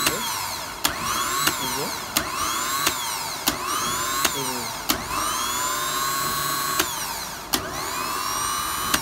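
Truck starter motor run on the bench in short bursts: a sharp click about every two-thirds of a second, each followed by the motor's whine rising and falling away, with one longer run a little past halfway.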